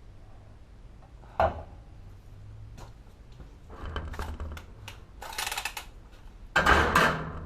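Plumbing tools and pipe fittings being handled: a sharp click, then bouts of metallic scraping and clattering, the loudest near the end.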